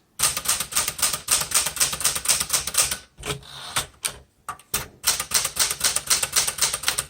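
Typing on a 1972 Smith Corona Classic 12 manual typewriter: rapid key strikes with typebars hitting the platen, in two runs with a break of about a second and a half around the middle.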